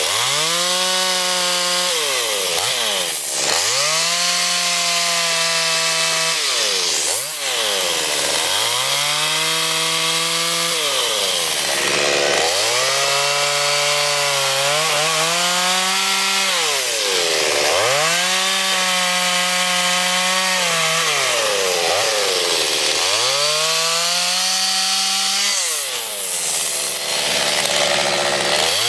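Two-stroke chainsaw running at high revs while carving wood, its engine note dropping sharply and climbing back every few seconds.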